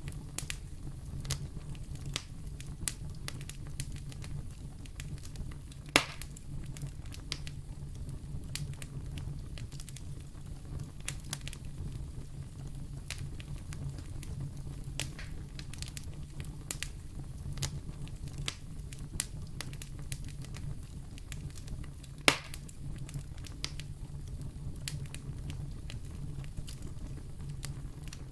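Fire in a fireplace crackling with many small snaps over a low steady rumble, with two sharper, louder pops, about six seconds in and again about twenty-two seconds in.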